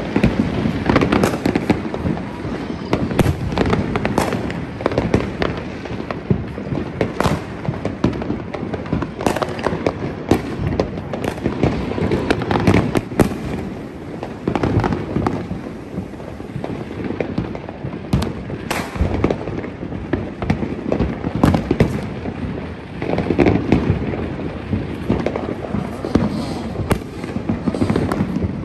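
Neighbourhood fireworks going off in a dense, continuous barrage: many overlapping bangs and crackling pops over a rumble, with louder bangs standing out every few seconds.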